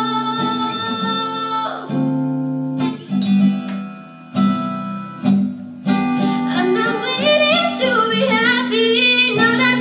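Solo female singer with her own strummed acoustic guitar: a long held sung note, then a few seconds of guitar chords alone, then wordless vocal runs over the chords in the second half.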